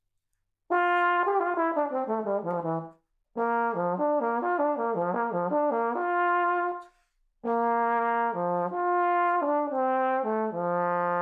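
Solo tenor trombone, played through a Dennis Wick 5 mouthpiece, playing three short phrases of quick notes. The first is a descending run, and the last ends on a long held low note. The player is testing how this larger mouthpiece affects his tone and register.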